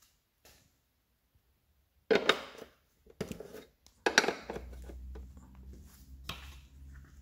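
Several loud knocks and a clatter of hard objects, then a steady low hum starts about halfway through and carries on under a last knock.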